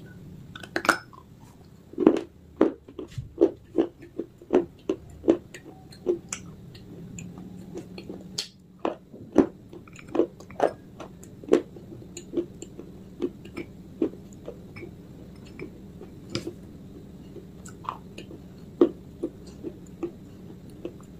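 A person biting and chewing pieces of baked Punjab clay (mitti): a run of sharp, irregular crunches, about one to two a second.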